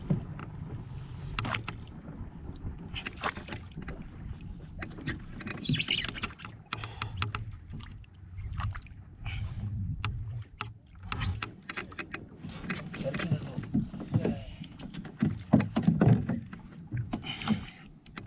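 Water sloshing against a small wooden outrigger boat (banca) under a low rumble, with irregular knocks and clicks as the angler cranks the reel against a hooked fish on a bent jigging rod.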